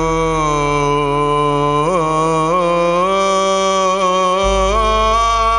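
A man singing a long held note in Arabic classical style, ornamented with wavering melismatic turns, over a sustained low instrumental accompaniment that moves to a new bass note about four and a half seconds in.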